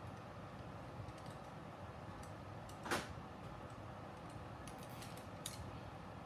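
Small clicks and taps from handling a racing-drone frame and its wires on a work mat, with one louder sharp knock about three seconds in and a few quick clicks near the end.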